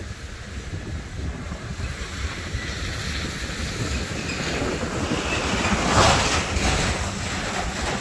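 Wind buffeting the microphone: an uneven low rumble with a stronger gust about six seconds in.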